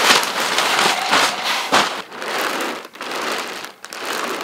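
Therm-a-Rest Uberlite inflatable sleeping pad of thin 15-denier nylon crinkling and rustling as it is pressed and shifted on. The sound comes in several uneven swells and is loudest in the first two seconds.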